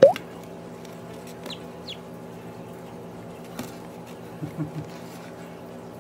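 Newly hatching chick peeping: one loud, quick rising peep at the start and two faint high peeps a little later, over a steady low hum. Near the end come three short soft knocks as the chick heaves against its shell.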